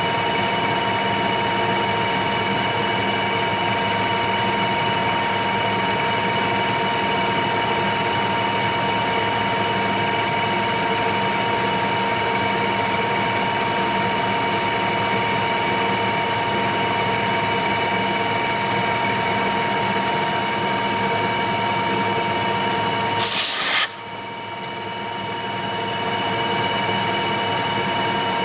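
Milling machine spindle driving a gold-coated end mill through a keyway in a round bar: a steady machine whine with a strong high tone over the cutting noise. About 23 seconds in, a short loud burst of hiss cuts across it. Right at the end the whine begins to drop in pitch as the spindle slows.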